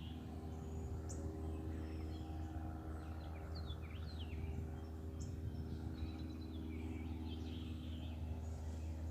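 Several wild birds singing, with short chirps and quick falling whistles scattered throughout, over a steady low hum.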